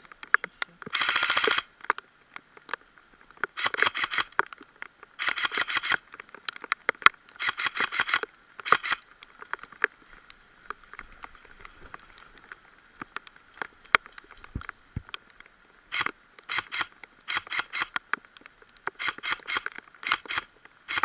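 Electric airsoft rifle firing in full-auto bursts, a rapid rattling buzz of the gearbox cycling. There are five longer bursts in the first nine seconds, then a string of short bursts near the end.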